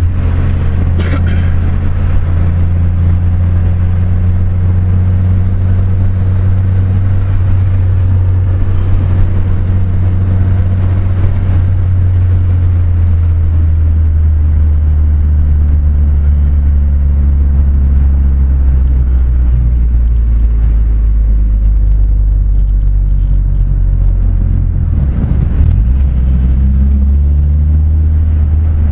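Car engine and road noise heard from inside the cabin while driving: a loud, steady low drone. Its pitch drops about twenty seconds in and rises again a few seconds before the end.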